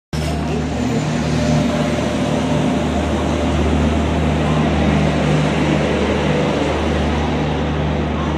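WAP-7 electric locomotive and its coaches rolling past along the platform: a steady low hum over the continuous running noise of the train.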